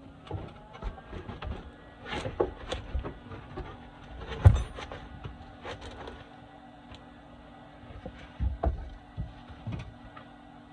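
Irregular knocks and clanks of steel parts being handled and fitted into a car body during structural rust repair, with one loud clank about four and a half seconds in, over a steady low hum.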